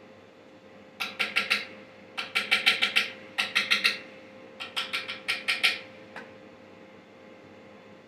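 Welding arc struck in short rapid pulses, stitch-welding sheet metal. It comes as four bursts of quick crackling pulses, several a second, with a single click a little after the last burst.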